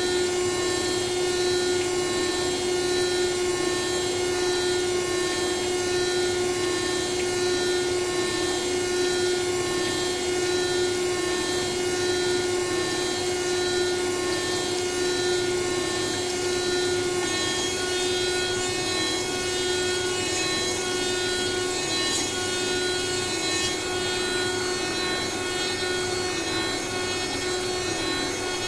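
Glass CNC milling machine's spindle running a steady whine while its cutter grinds thick glass under a spray of coolant water.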